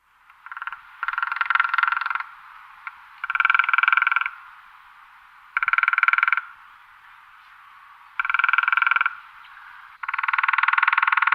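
An animal's rapid rattling croaks, each call about a second long and repeated every two to two and a half seconds, over a fainter steady chorus of similar calls.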